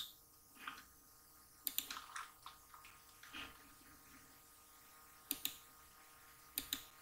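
Sparse clicking of a computer mouse and keyboard, with two quick double clicks in the second half.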